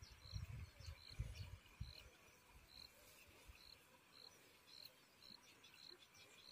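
Near silence outdoors, with a faint short high chirp from a small calling animal repeating a bit under twice a second. Low rumbling thuds sound during the first two seconds.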